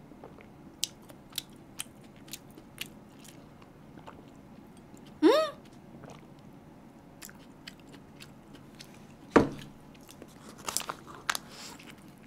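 A person chewing a toasted egg-and-cheese sandwich: soft wet mouth clicks come and go. There is a short hummed "mm" about five seconds in and a single sharp thump about nine seconds in. A cluster of bites and crunches follows near the end.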